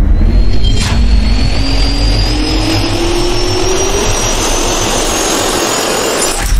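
Jet-turbine spool-up sound effect: a deep rumble under whines that rise steadily in pitch, with a sharp hit about a second in and another near the end.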